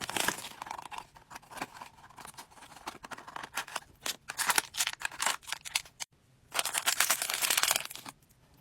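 Plastic and cardboard packaging being torn open and crinkled by hand: a run of quick rustling tears and crackles, a brief pause about six seconds in, then a louder spell of crinkling before it goes quiet.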